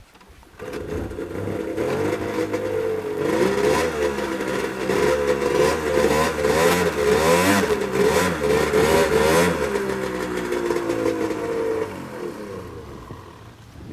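Snowmobile engine starting abruptly and revving up and down repeatedly, then dropping back and fading away near the end.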